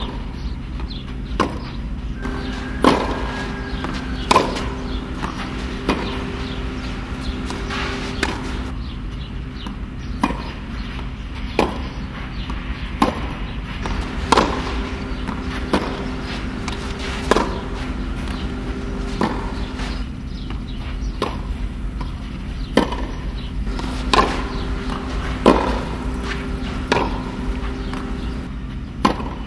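Tennis ball struck by a racket over and over, a sharp pock about every second and a half, over a steady low hum.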